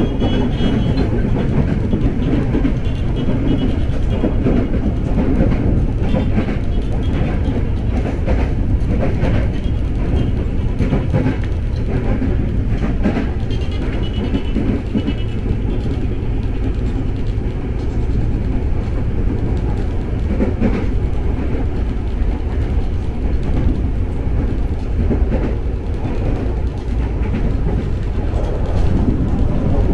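KRL Commuter Line electric train running on the track: a steady low rumble with irregular clacks of the wheels over rail joints.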